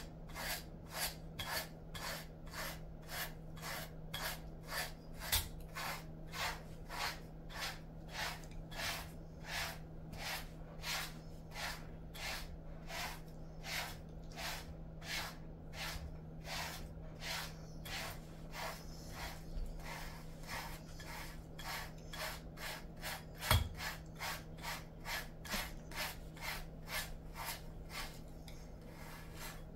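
Slicker brush raking through a Jindo dog's thick coat in short rasping strokes, about two a second. A single dull thump about three-quarters of the way through.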